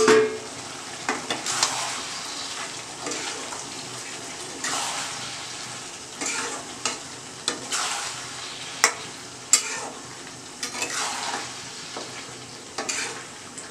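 Metal spoon stirring a thick mutton and potato curry in a kadai on the gas flame, scraping round the pan in irregular strokes, with a couple of sharp clinks against the metal near the middle. A steady sizzle of the curry cooking runs underneath.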